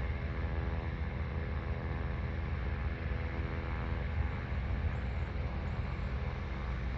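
A steady engine hum, with wind rumbling on the microphone; the engine's tone grows fainter about halfway through.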